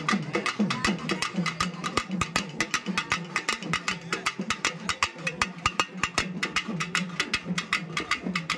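Drums beaten fast in a procession rhythm, many sharp strikes a second, with a low pitched note pulsing underneath.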